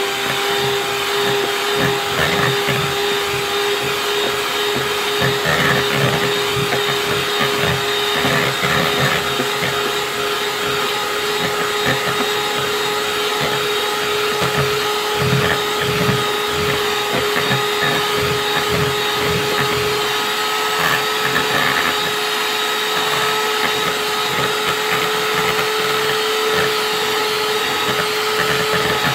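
Electric hand mixer running steadily at one speed, its beaters creaming a thick mix of cream cheese and mashed plantain in a plastic bowl. There is a steady motor whine over uneven low knocking from the beaters working through the mixture.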